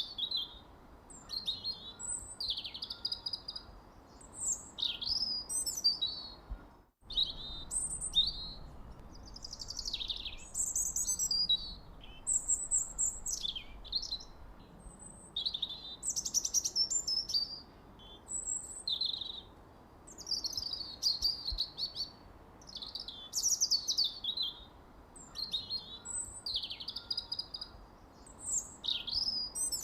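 Songbirds chirping and twittering: many short, high-pitched calls overlapping in quick succession, over a faint background hiss. The sound drops out for a split second about seven seconds in.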